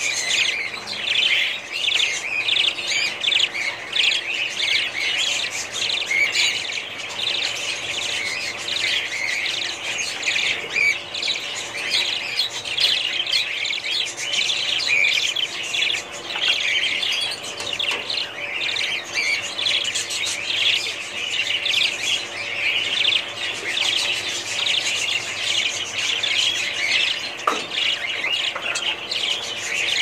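A flock of budgerigars chirping and chattering continuously, a dense steady stream of high quick chirps and warbles.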